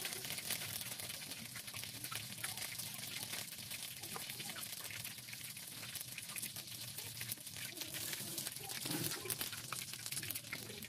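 Hot oil in a karahi sizzling as battered fritters fry: a steady crackling hiss with scattered small pops.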